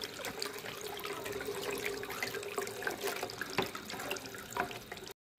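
Water running from a tap and splashing over a phone held in a plastic basin of water, with small splashes as it is rinsed; the sound cuts off suddenly near the end.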